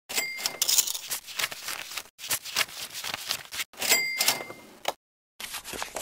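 Book pages being riffled rapidly, a fast run of papery flicks, repeated as several separate takes with brief silences between them.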